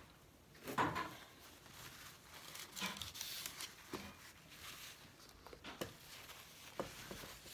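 Parchment paper rustling and crinkling as a lined metal baking pan of cake batter is handled, with a few light knocks.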